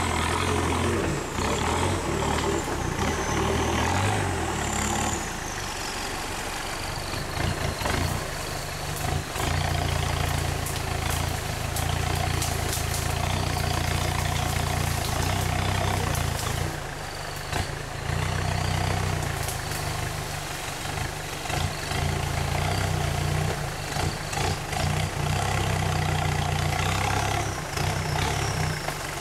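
Lifted Mitsubishi Strada G-Wagon SUV crawling slowly through jungle undergrowth, its engine running low and steady with brief dips in level. Scattered sharp cracks and knocks run through it.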